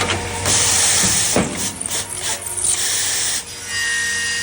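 Automatic aluminum hinge making machine working an aluminum profile: a loud hissing cutting noise in stretches with a knock about a second and a half in, then a steady whine near the end.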